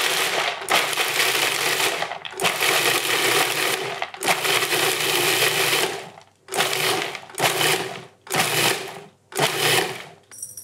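Food processor pulsing roasted cashews and pistachios, the blade throwing the nut pieces around the bowl. It runs in a few long bursts, then four short pulses in the last few seconds. The pulsing leaves some pieces large and grinds others fine.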